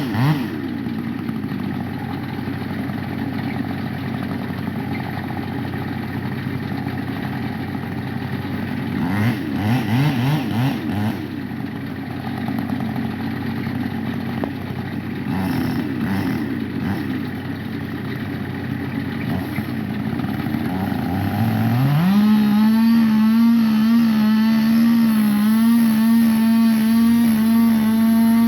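Gas chainsaw running at low speed with a few short revs, then revving up to full throttle about 22 seconds in and holding there.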